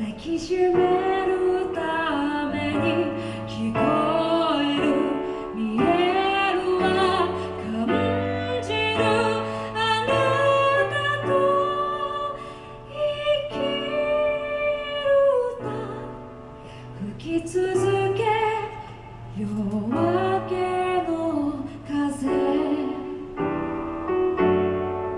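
A female vocalist singing a slow, long-held melody with live piano accompaniment.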